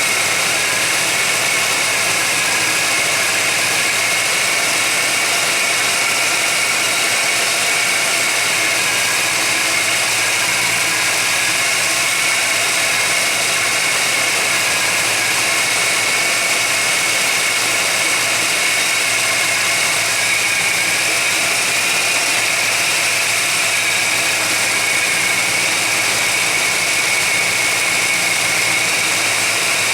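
1991 GMC Jimmy engine idling steadily, with a steady high-pitched whine over the running.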